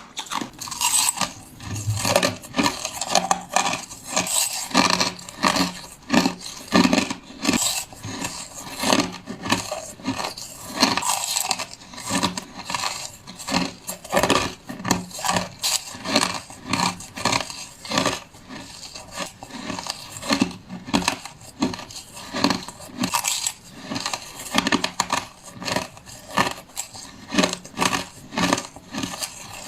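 Crushed ice being bitten and crunched between the teeth, a continuous run of crisp, irregular crunches and crackles.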